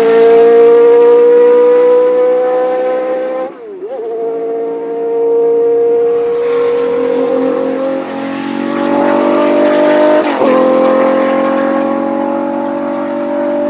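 Racing engines at full throttle pulling away down a straight. The pitch climbs steadily, with a sharp gear change about a quarter of the way in and another about three-quarters through. In the second half the 6.2-litre V12 of a 1982 Jaguar XJR-5 IMSA GTP car passes and pulls away after the leading car.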